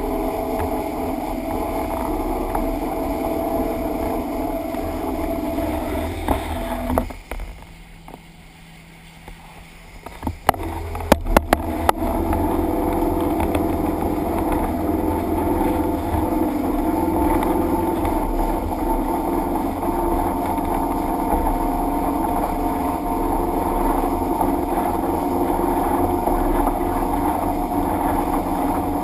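Motorboat running at speed across a lake: a steady engine hum over the rush of water and wind along the hull. About seven seconds in the sound drops away for roughly three seconds. A few sharp knocks follow before the hum returns a little louder.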